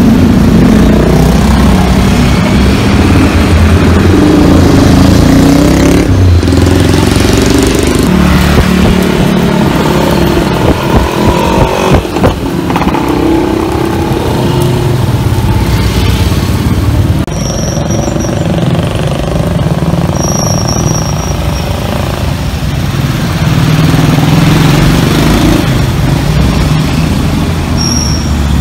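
Street traffic: motorcycle and car engines running and passing close by, rising and falling, with a few short high chirps in the second half.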